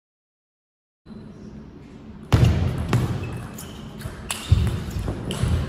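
After about a second of dead silence, a table tennis rally: the celluloid ball clicking sharply off rubber-faced bats and the table, with heavy thuds of the players' footwork on the hall floor.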